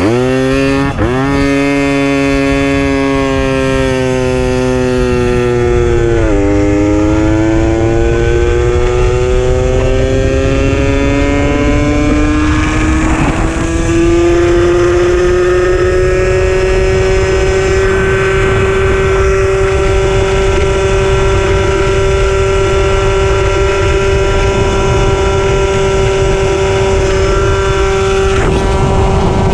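Puch Maxi moped's 49 cc single-cylinder two-stroke engine running under way. Its pitch climbs, dips sharply near six seconds, then rises slowly and settles to a steady cruising note. A low wind rumble sits on the microphone underneath.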